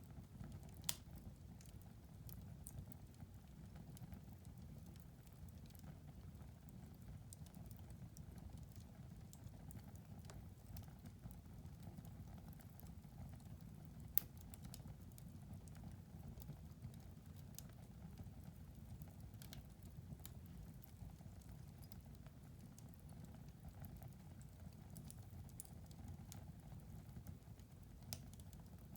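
Wood fire crackling in a fireplace: irregular sharp pops and snaps over a faint low rumble of the flames, with two louder pops, one about a second in and one about halfway through.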